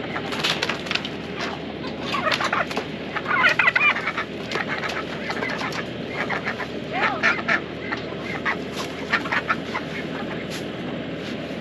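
Backyard chickens clucking in an irregular run of short calls, loudest a little over a third of the way through, over a steady low background noise.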